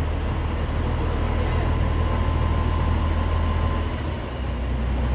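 Heavy truck diesel engine idling steadily, with a faint steady whine that fades out about four seconds in.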